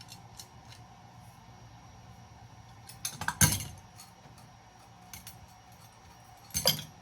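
Light metal clicks and clinks of copper bus bars and their bolts being handled, with two louder metal clatters, one about three and a half seconds in and one near the end, over a faint steady hum.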